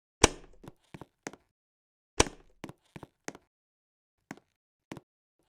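A series of sharp knocks and clicks. Two loud ones come about two seconds apart, each followed by lighter taps, and a few single clicks follow later.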